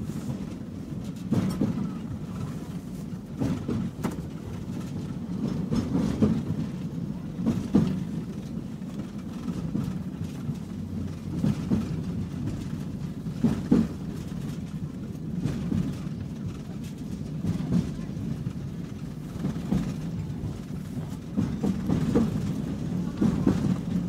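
A tram running, heard from inside the car: a steady low rumble with irregular clacks and knocks every few seconds.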